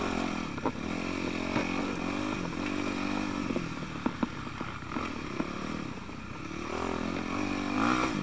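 Yamaha YZ250F dirt bike's single-cylinder four-stroke engine revving up and down as it is ridden along the trail, with scattered sharp knocks.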